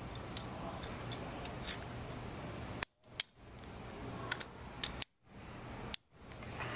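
Light handling of small metal parts, with a few faint metallic clicks and sharper ticks near the middle and near the end, as a stainless-steel drive coupling half is fitted onto the auger shaft against a plastic bushing and its retaining pin is readied.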